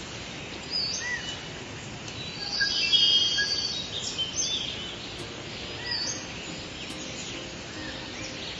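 Several wild birds calling and singing, short whistled notes that rise and fall, over a steady background hiss; the calls are densest and loudest about three seconds in.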